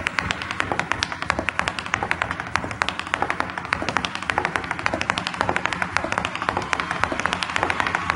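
A solo dancer's hard dance shoes striking a stage floor in rapid percussive footwork, many sharp taps a second in an unbroken run.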